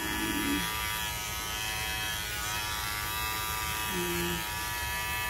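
Electric dog grooming clippers running with a steady buzz as they shave the hair from between a small dog's paw pads.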